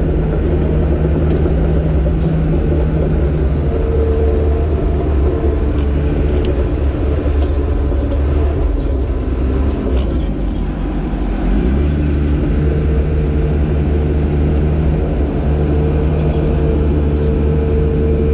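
Crawler bulldozer's diesel engine running steadily as the machine tracks across dirt. About nine seconds in, the engine note sags and weakens for a couple of seconds, then rises and steadies again.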